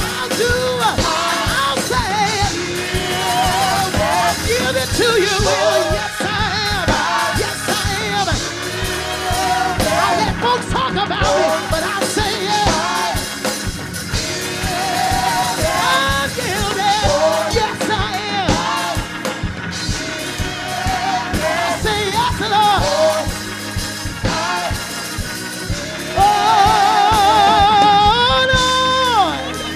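Live gospel music: a solo voice singing melismatic runs over sustained accompaniment, ending in a long high note with wide vibrato.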